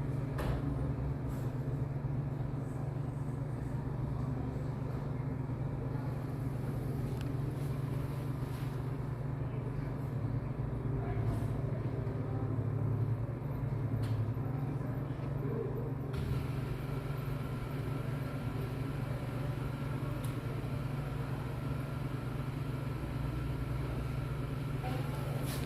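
A steady low mechanical hum, like a vehicle engine or machinery running, with a few faint clicks.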